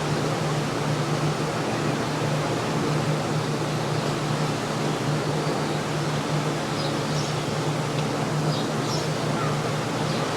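Countryside ambience: a steady rush of wind and seashore surf with a constant low hum beneath, and a few faint, high bird chirps in the second half.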